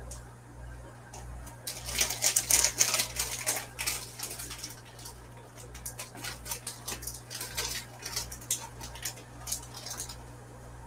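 Crinkling and crackling of a plastic bag of egg noodles being handled, densest about two to four seconds in, then lighter intermittent crackles, over a steady low hum.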